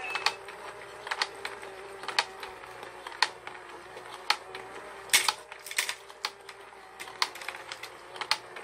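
Children's electric fishing-game toy running: a steady motor hum under sharp plastic clicks about once a second from the rotating pond mechanism, with extra irregular clicks as the toy rod's hook knocks against the plastic fish.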